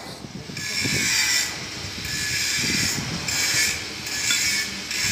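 A steady, hissing machine noise starts just after the beginning and keeps going, rising and falling a little, with a couple of low thuds under it.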